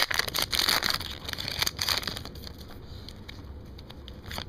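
Trading-card pack wrappers crinkling and rustling as packs are opened and handled. The crinkling is loudest for about the first two seconds, then drops to light scattered rustles and clicks.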